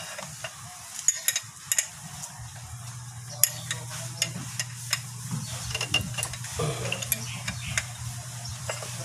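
Scattered metallic clicks and taps of a wrench working the nuts on a truck engine's fan clutch, over a steady low hum and a faint hiss.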